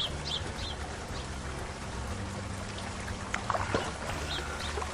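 Sound-effect ambience of running water, a steady rushing haze with a low hum, with short high bird chirps in the first second and again a few times past the middle.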